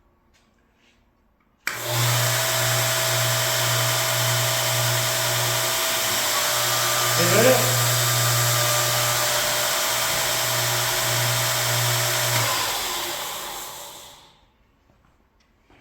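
DIY belt grinder switched on, starting suddenly and running steadily with a belt hiss and a low motor hum for about ten seconds, then switched off and winding down over about two seconds.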